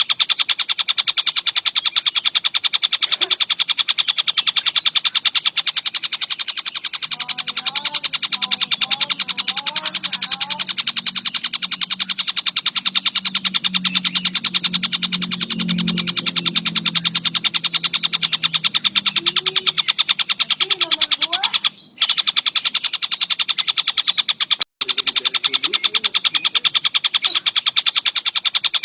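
Tengkek buto song from a bird-song tutor recording: a loud, high, very rapid trill that runs on without a break, cutting out briefly twice near the end.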